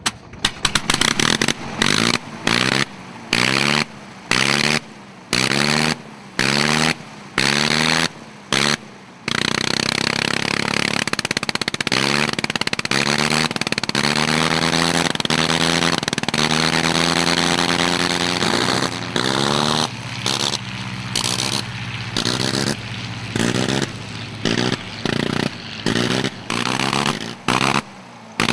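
Sopwith Camel's 160 hp Gnome rotary engine catches just after the propeller is hand-swung. It then runs in quick on-off bursts, its speed dipping and recovering with each cut, the ignition being blipped to hold the rotary at low speed. About halfway it runs steadily for some ten seconds, then goes back to the on-off bursts.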